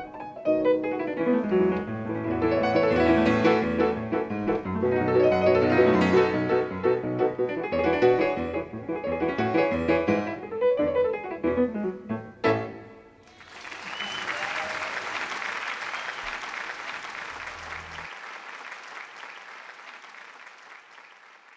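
Grand piano played fast and densely, ending on a loud final chord about twelve seconds in. Audience applause follows and slowly fades away.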